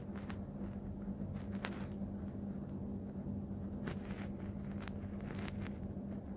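A hand rubbing thick spice marinade over whole fish in a steel bowl: soft wet squelches and scattered light clicks, a second or so apart, over a steady low hum.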